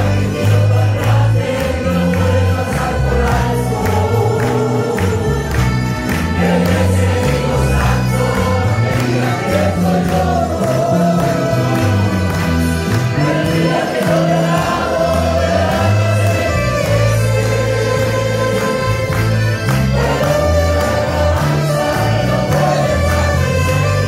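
Church choir singing a Spanish-language gospel hymn, accompanied by accordion and guitars over a moving bass line.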